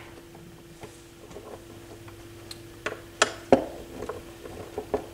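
Scattered small metallic clicks of a screwdriver working the screw on a turntable's platter spindle bearing housing, three louder ones close together a little past halfway, over a faint steady hum.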